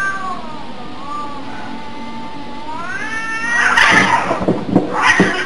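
Two cats in a standoff, one drawn-out yowling caterwaul that sinks and then rises in pitch. It breaks into loud noisy hisses and scuffling about three and a half seconds in, with another burst near the end.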